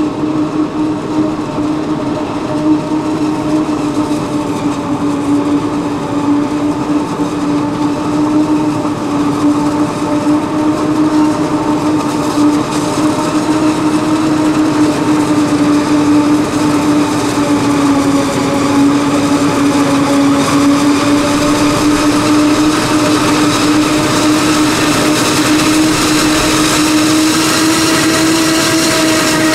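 Claas Jaguar self-propelled forage harvester chopping maize, a steady droning hum whose pitch dips slightly and rises again near the end, getting gradually louder as the harvester and the tractor beside it come closer.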